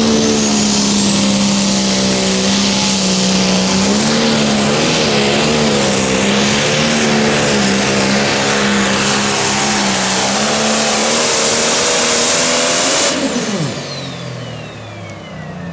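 Turbocharged diesel engine of a pulling tractor run flat out while it drags the weight-transfer sled, its note wavering under load, with a high turbo whistle that slowly climbs. About thirteen seconds in, the engine drops off and the turbo whistle falls away as the run ends.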